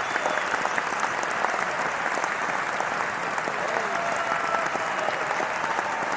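A large crowd applauding steadily, the dense clapping holding an even level, with cheering voices mixed in.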